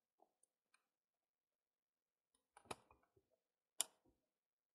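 Near silence broken by a few faint clicks and light knocks, the sharpest nearly four seconds in.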